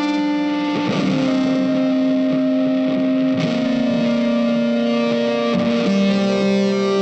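Background music led by guitar, with long held notes that change every two or three seconds.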